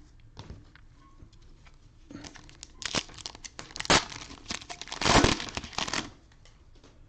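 Cellophane wrapper of a trading-card cello pack being torn open and crinkled, starting about two seconds in and going on in crackling spurts for about four seconds.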